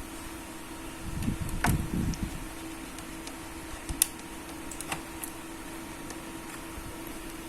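Hands handling small laptop parts while fitting a hard-drive caddy: rubbing and shuffling about a second in, then one sharp click about four seconds in and a couple of lighter clicks, over a steady low hum.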